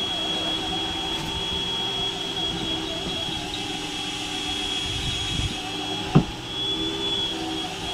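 Steady mechanical drone of a fishing boat's engine, with a constant high whine over lower hums, and one sharp knock about six seconds in.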